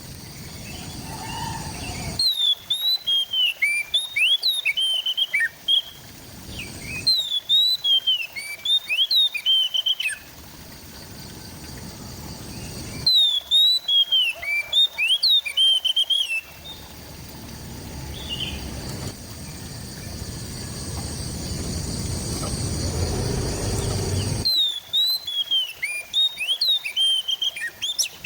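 Oriental magpie-robin singing in four bursts of rapid, sliding whistled notes, each a few seconds long. Between the bursts there is a low rumbling background noise that swells in the second half.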